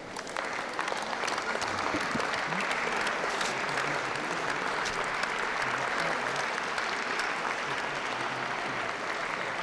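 Audience applauding, breaking out suddenly and then carrying on steadily.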